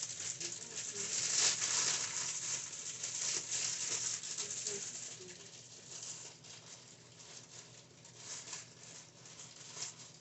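Plastic steaming bag of frozen broccoli florets crinkling and rustling as it is handled, loudest in the first few seconds and dying down after about five seconds.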